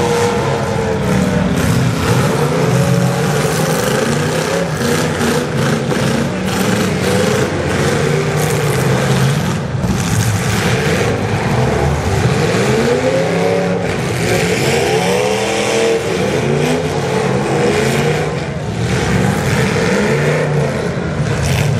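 Several demolition derby car engines running at once, revving up and down, with short knocks now and then.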